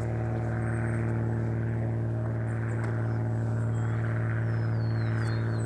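A steady engine drone at one unchanging pitch, with a few faint high gliding chirps near the end.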